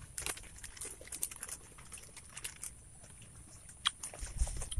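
Scattered crisp clicks and rustles of fresh raw leaves being handled and chewed, with a fuller rustling near the end as a handful is picked from the pile.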